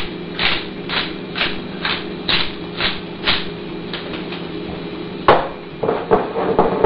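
Pepper mill grinding peppercorns in short twists, about two a second, stopping after about three and a half seconds. A sharp knock follows, then a few lighter knocks.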